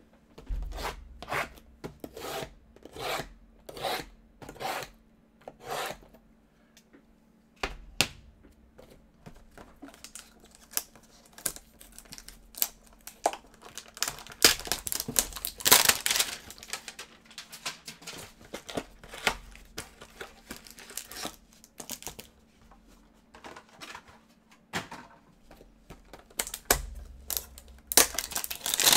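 Cardboard hanger boxes of trading cards and their wrapping being torn and pulled open by hand: scraping, tearing and crinkling. There is a run of evenly spaced rubbing strokes over the first few seconds, and the tearing is densest and loudest around the middle.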